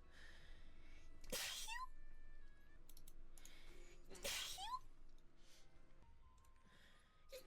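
Two odd sneezes about three seconds apart, each a sharp hissing burst that ends in a short rising squeak; a third begins at the very end.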